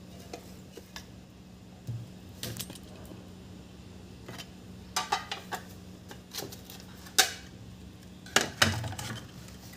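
Metal clinks and knocks as the metal cover of a car engine control unit is lifted off and the unit is handled on a hard workbench: several scattered sharp knocks, the loudest near the end, over a steady low hum.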